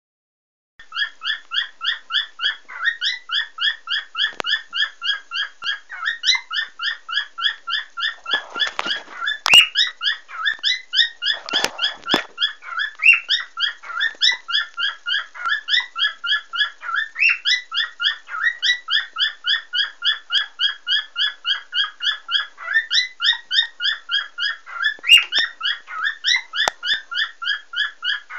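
Cockatiel chirping steadily, a long run of short rising notes at about four a second. Two brief rustling noises break in about a third of the way through.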